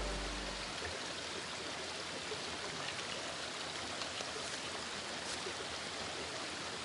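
River flowing, a steady rush of water. The tail of background music fades out in the first second.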